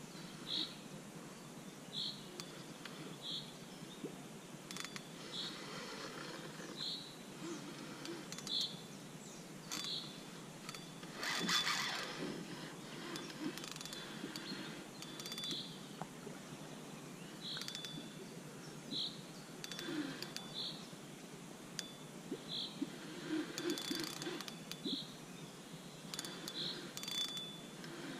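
Spinning reel on a carp rod: a short rasping buzz about twelve seconds in as line goes out under a hooked carp, then the reel's gear and line rasping in shorter bursts as it is wound. A bird's short high call repeats about every second and a half throughout.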